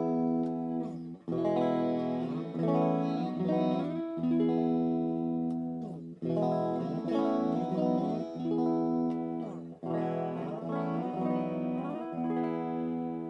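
Aria Pro II XR-series ST-3 electric guitar being played in phrases of single notes and chords, with notes gliding in pitch, broken by short gaps about a second, six seconds and ten seconds in.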